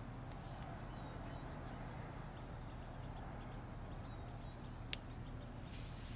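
Steady low background hum with faint scattered ticks and one sharp click about five seconds in.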